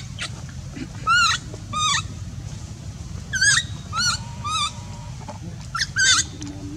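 Baby macaque crying: six or seven short, high-pitched calls, each rising then falling, in three bouts, over a steady low background hum.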